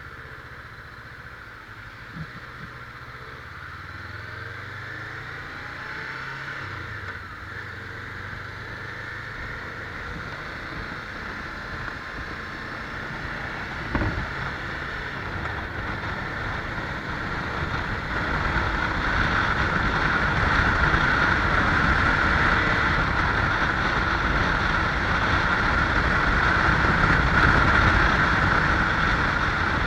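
Motorcycle being ridden: the engine note climbs and drops through gear changes, then a rush of wind on the microphone grows louder as speed builds. There is a single knock partway through.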